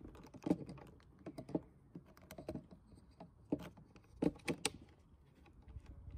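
Irregular plastic clicks and knocks as the pump head of a hand-pump oil filler bottle is handled and fitted onto the filled plastic bottle.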